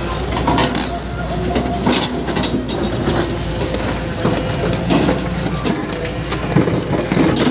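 Tractor engine running as it pulls a loaded trailer of earth and rock over rough ground, with the trailer rattling and clanking over the bumps.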